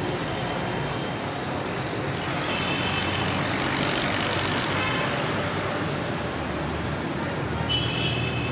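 Steady, loud road-traffic noise, with a high-pitched tone cutting in twice, about two and a half seconds in and again near the end.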